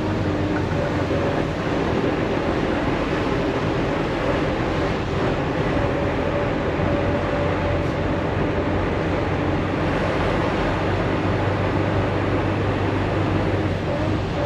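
Semi truck driving at road speed, heard from inside the cab: a steady diesel engine drone over tyre and road noise.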